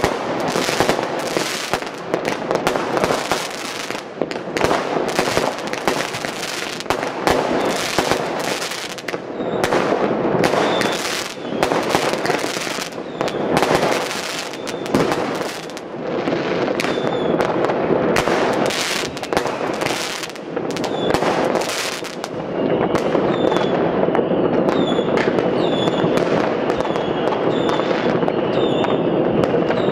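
Fireworks and firecrackers going off in great numbers: a dense run of overlapping bangs and crackling. About two-thirds of the way through it thins into a steadier wash of more distant shots, with faint high chirps repeating about once a second.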